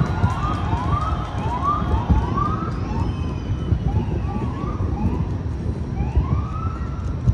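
Emergency siren wailing in quick rising sweeps, about two a second, then one slower, longer sweep near the end, over a steady low background rumble.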